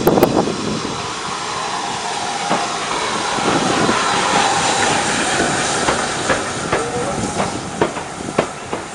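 Southern Railway U class 2-6-0 steam locomotive 31806 pulling away: heavy exhaust chuffs at the very start, then a loud steady hiss of steam from around its cylinders. From about six seconds in, sharp clicks of coach wheels over the rail joints as the train passes.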